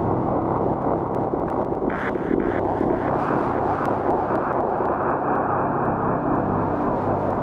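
Steady low rumble of distant engine noise, with three short higher-pitched blips about two seconds in.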